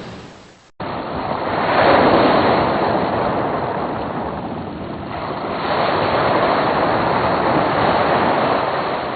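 Ocean surf: waves breaking and washing in, swelling twice, about four seconds apart. Just under a second in, a previous fading recording cuts to this one.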